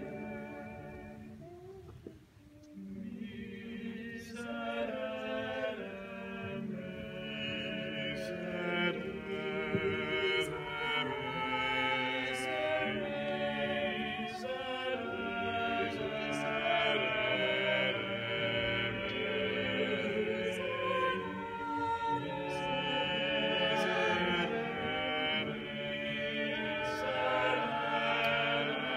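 Small mixed choir of eight voices singing medieval choral music unaccompanied, several parts moving together. The voices ease off briefly about two seconds in, then build again into full singing.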